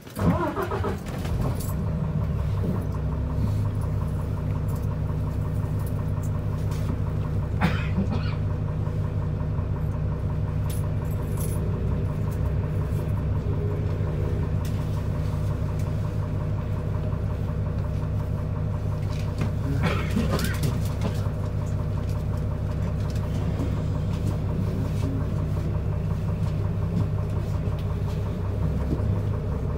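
Isuzu Erga city bus engine starting up with a sudden burst, then idling steadily with a low hum while the bus stands, heard from inside the bus. Two brief sharper noises break in, about 8 and 20 seconds in.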